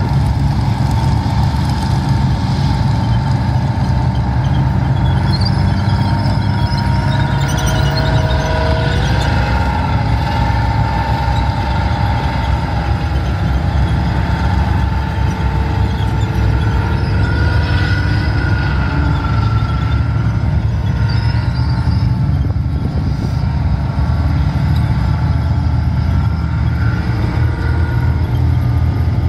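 Tanks driving past on a dirt arena track: a steady low engine rumble, with a wavering whine and squeal from the running gear and tracks.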